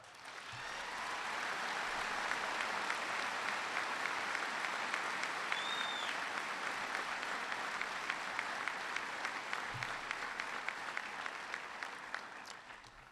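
Audience applauding. The clapping swells over the first two seconds, holds steady, and dies away near the end.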